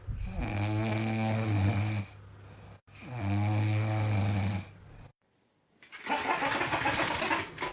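Two long, low snores, each about a second and a half, then a noisy, breathy hiss near the end.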